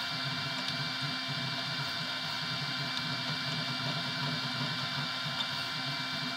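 Desktop 3D printer running a print: a steady mechanical whir with a thin constant high whine.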